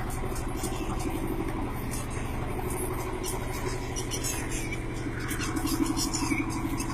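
1973 Ford 3000 tractor's three-cylinder diesel engine running steadily at idle.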